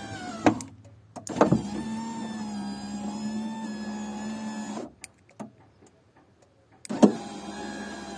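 Opel Astra F front door electric window motor, a brushed motor driving the scissor regulator, running the glass with a steady hum: a brief run at the start, a run of about three and a half seconds, a pause, then another run starting about seven seconds in, each start with a sharp clunk. It is working normally again, its greasy commutator contacts cleaned.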